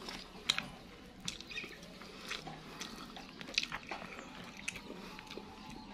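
Close-up mouth sounds of a man eating rice by hand: wet chewing with scattered short lip smacks and clicks, the sharpest about half a second in and again about three and a half seconds in, over a faint steady hum.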